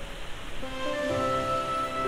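Instrumental background music: after a sparse start, held notes come in about half a second in and layer into a fuller chord.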